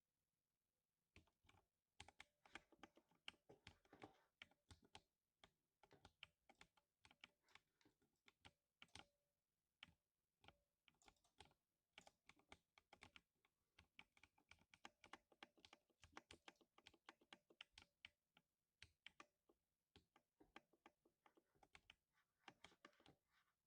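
Typing on a lubricated 60% mechanical keyboard: quiet thocky keystrokes in quick runs with short pauses between them, starting about a second in.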